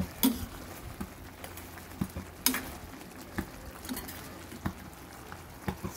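Thick sweet and sour sauce simmering in a stainless steel pan with a soft bubbling hiss. A cooking utensil stirs and knocks against the pan a few times, sharpest about a quarter second in and again about two and a half seconds in.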